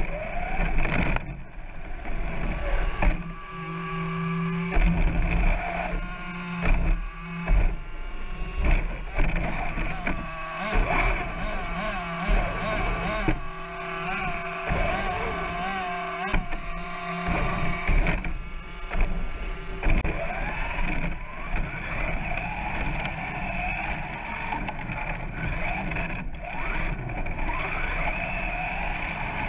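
Brushless electric motor of an RC short course truck whining, rising and falling in pitch as it speeds up and slows down, over a constant rumble of the chassis running on rough tarmac, heard from a camera mounted on the truck itself.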